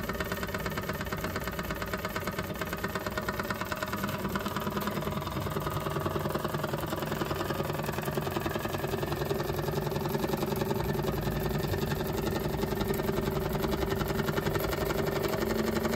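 Small old model steam engine chugging steadily with quick, even chuffs of steam, over the steady rush of its hydrogen burner flame. The chuffing grows a little louder toward the end.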